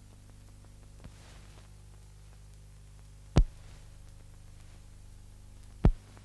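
Steady low electrical hum and faint hiss from the transfer of a silent archive film, broken by two sharp pops about two and a half seconds apart.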